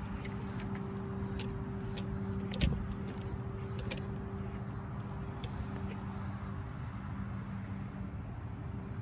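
Steady hum of a distant engine, with one low thump about two and a half seconds in.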